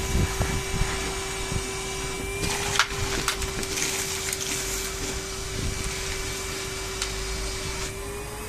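Henry Hoover canister vacuum cleaner running with a steady whine, with scattered clicks and rattles as the nozzle works over the car interior and picks up debris. The whine rises slightly in pitch near the end.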